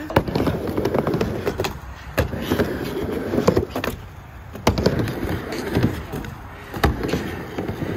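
Skateboards on a mini ramp: wheels rumbling as they roll, with several sharp clacks of boards striking the ramp.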